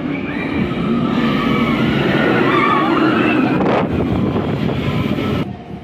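Nemesis Reborn, a Bolliger & Mabillard inverted steel roller coaster, its train rushing through the trench under the track with riders screaming; the noise drops off sharply about five seconds in.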